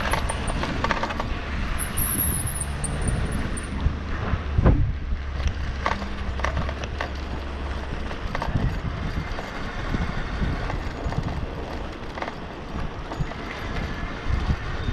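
Riding noise from a 20-inch folding e-bike: a steady rumble of wind and tyres on the road, with a sharp knock about four and a half seconds in and smaller rattles. The low rumble eases about eight seconds in.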